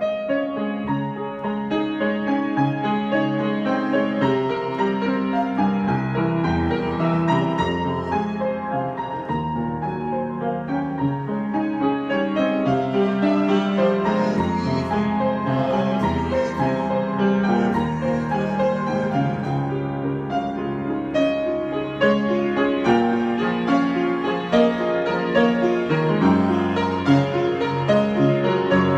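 Solo piano playing an improvisation: a continuous stream of notes and chords in the low and middle range.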